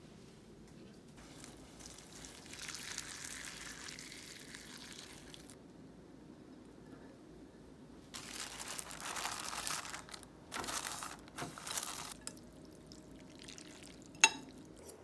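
Kitchen handling sounds while making instant rice-noodle soup: a few seconds of steady hiss, then bursts of crinkling from the plastic instant-pho packet, and one sharp click near the end.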